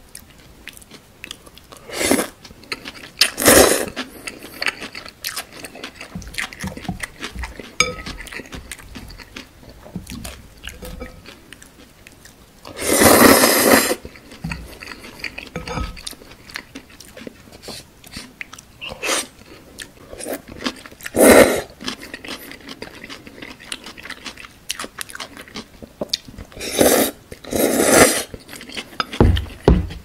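Close-miked eating of chewy jjolmyeon noodles: several loud slurps of noodles, the longest about a second and a half near the middle, with chewing in between.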